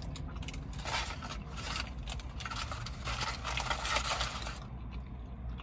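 Close-up eating sounds of a paper-wrapped sourdough burger being handled and bitten: crinkly, scraping noises in several bursts that stop about a second before the end.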